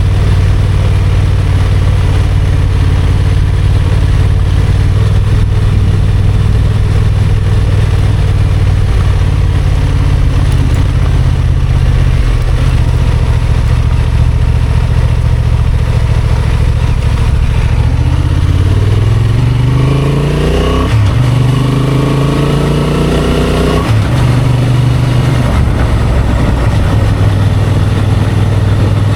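Honda XL750 Transalp's 755 cc parallel-twin engine running at steady low revs while the bike is ridden off-road. About two-thirds of the way in it accelerates, the revs climbing twice with a brief dip at a gear change. It then falls back to a steady low note.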